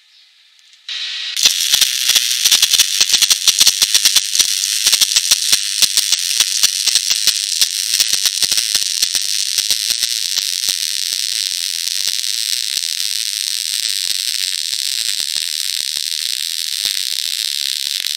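MIG welding arc crackling over a steady hiss. It starts about a second in with a dense run of sharp crackles, which thin out in the second half to a steadier sizzle.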